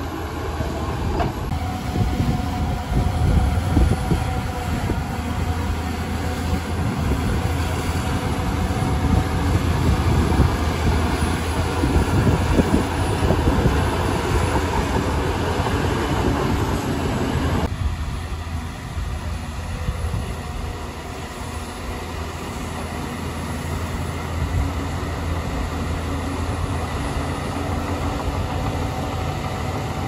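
Shantui DH17C2 crawler bulldozer working: its diesel engine running hard with the clatter of its steel tracks. The higher part of the noise drops away a little over halfway through, and the machine carries on at a lower level.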